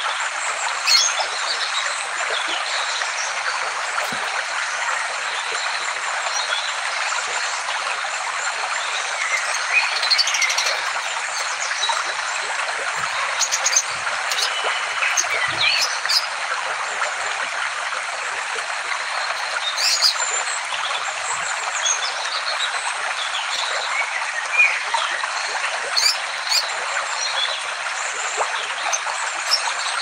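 Small aviary birds chirping and whistling at scattered moments over a steady hiss.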